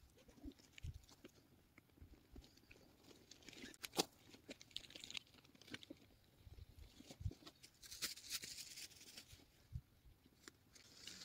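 Faint rustling and handling noises as camping gear is pulled out of a rucksack: scattered clicks and crinkles, a sharper click about four seconds in, and a longer rustle of fabric near the end as a red tent bag is taken out.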